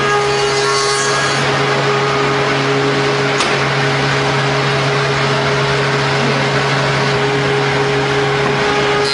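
CNC wood mortising machine running with its cutter milling into a clamped wooden workpiece: a steady motor hum and whine over a dense hiss.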